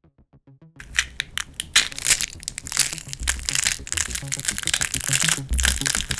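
Gore sound effects: wet crunching and crushing of flesh and bone, in a dense run of crackles that starts after a second of faint clicks. Deep bass hits sound about every two seconds beneath it.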